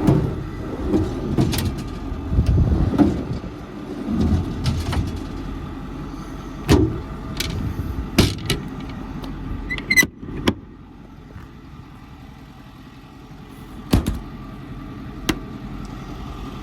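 A 2009 Ford F550's 6.4 Power Stroke diesel idling steadily. Sharp knocks and clunks come now and then, about eight in all, with a rumbling spell in the first few seconds.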